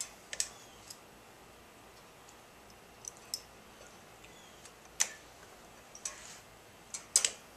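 Small metallic clicks and taps, irregularly spaced, as needle-nose pliers work a small spring into the carburetor linkage; the sharpest click comes near the end.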